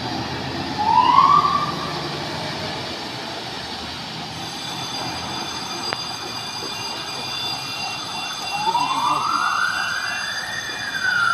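Fire engine siren: a short rising whoop about a second in, then a slow wail that climbs and falls away near the end. A truck's engine rumbles underneath as the fire engines pull out and drive off.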